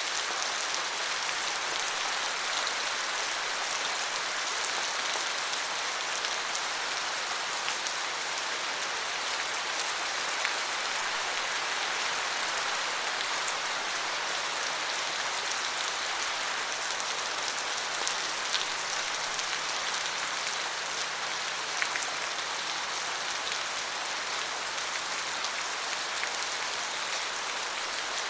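Steady rain falling, an even hiss with a few sharper individual drop ticks scattered through it.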